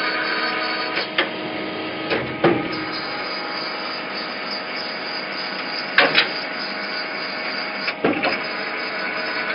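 Large nut tapping machine running with a steady mechanical whir and hum as its tap threads a nut. Short sharp metal clinks come about one second, two to two and a half seconds, six seconds and eight seconds in, as nuts and the hook tool knock against the oily fixture. The loudest pair is around six seconds.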